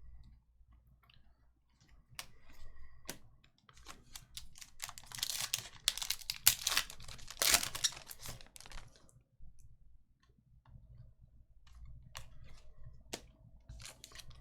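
Trading-card pack wrappers crinkling and tearing as packs are opened and cards are handled: a run of small clicks and rustles, busiest in the middle.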